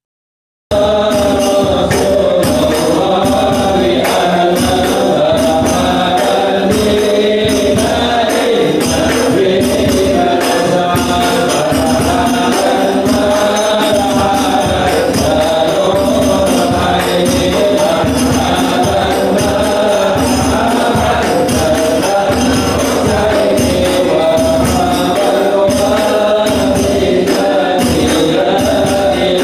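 A group of men chanting sholawat together, with frame drums (rebana) and a hadroh bass drum keeping a steady beat. It starts about a second in, after a brief silence.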